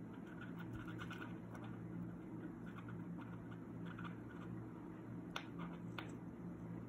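Faint clicks of a Skmei digital watch's side push button being pressed over and over to step the minutes forward, with fingers rubbing on the resin case, and two sharper clicks about five and six seconds in. A steady low hum underneath.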